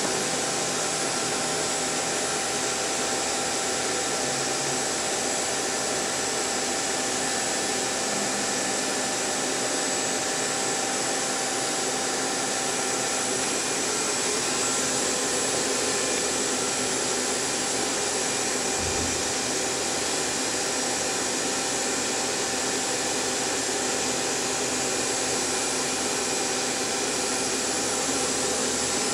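Hurco VM II CNC vertical machining center running with a steady whirring hiss and a faint high whine, with a single brief low thud about two-thirds of the way through.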